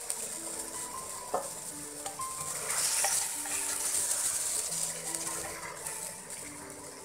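Eggplant and potato pieces being stirred with a spatula through hot masala in a pressure cooker pot: a steady frying sizzle that swells in the middle, with a couple of sharp knocks of the spatula against the pot.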